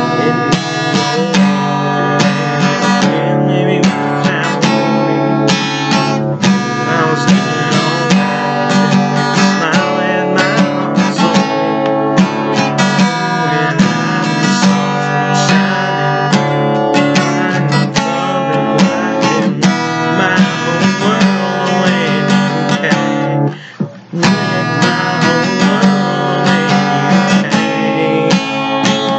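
Acoustic guitar strummed steadily in a continuous chord rhythm, with one brief break about four-fifths of the way through.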